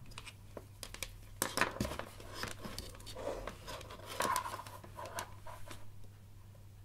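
Multimeter test probes and their leads being handled: light clicks, taps and scrapes of the plastic probes and wires against each other and the tabletop, stopping about six seconds in.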